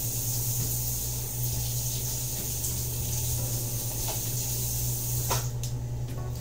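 Water running steadily from a kitchen tap into the sink as dishes are washed, over the steady low hum of a microwave oven running. A couple of light clinks near the end.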